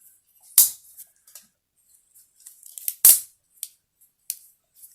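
Leatherman Free P4 multi-tool being handled and folded, with two sharp metal snaps about two and a half seconds apart and lighter clicks between.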